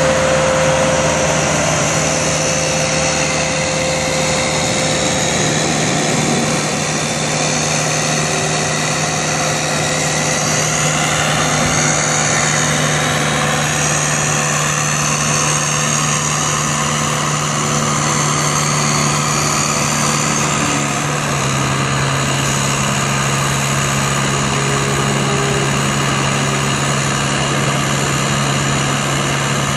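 Zoom Boom 10056 telehandler's diesel engine running steadily under load, with a high hydraulic whine as the boom raises and extends. The engine note drops slightly about two-thirds of the way through.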